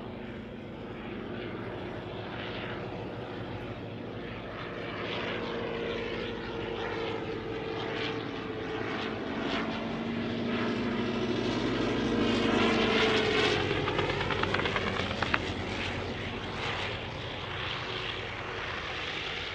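Fokker Dr.I triplane's engine and propeller during a low pass. The sound swells to its loudest about twelve seconds in, and the engine pitch drops as the plane goes by. A single sharp crack comes shortly after.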